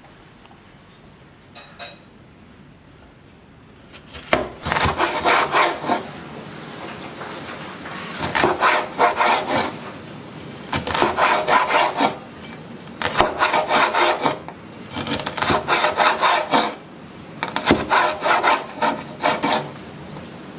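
Knife slicing a red bell pepper into strips on a wooden cutting board, with rapid cuts knocking on the board. The cutting starts about four seconds in and comes in six runs of one to two seconds each, with short pauses between them.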